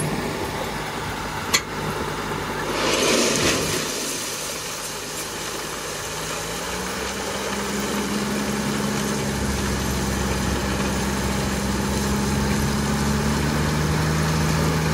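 Tata Signa dump truck's diesel engine running, then revved up from about six seconds in, its pitch and low rumble rising as it drives the hydraulic hoist that raises the loaded tipper body. There is a sharp click about a second and a half in and a short rush of noise around three seconds.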